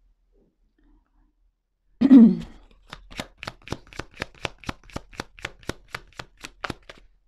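Tarot cards being shuffled by hand. A single loud thump comes about two seconds in, then the cards snap in a steady rhythm of about four clicks a second.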